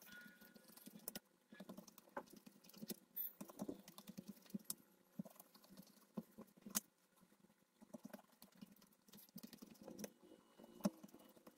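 Knife cutting a sheet of dried mango leather on a stainless steel plate: faint, irregular small clicks and scrapes.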